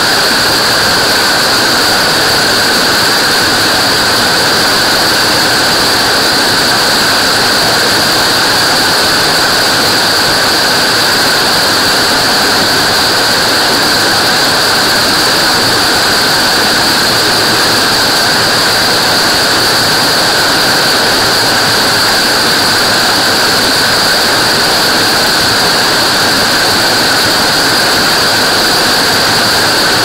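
Small waterfall fed by monsoon runoff, pouring over granite boulders into a rock pool: a loud, steady rush of falling and splashing water.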